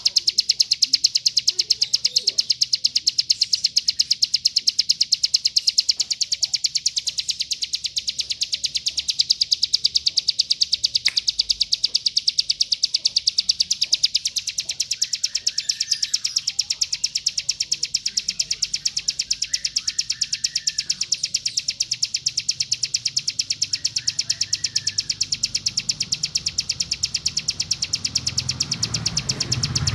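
Mountain ciblek (a prinia) giving its 'bren' call: a dense, very rapid buzzing trill repeated without a break. A few fainter chirps from other birds come in around the middle.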